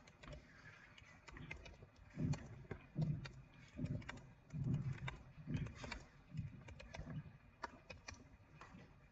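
Typing on a computer keyboard: irregular, fairly quiet keystroke clicks with soft low thuds.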